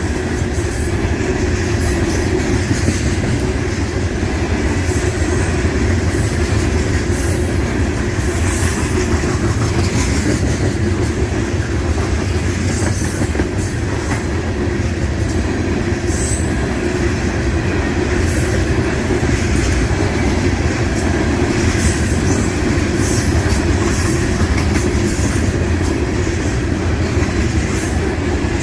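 Freight train cars of a unit train rolling steadily past trackside, with a continuous low rumble and the clatter of wheels over the rail joints.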